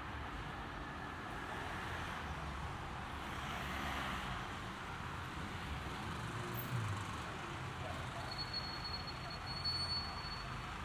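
City street traffic: a steady hum of cars, with one vehicle passing and swelling about four seconds in. A brief thin high tone near the end.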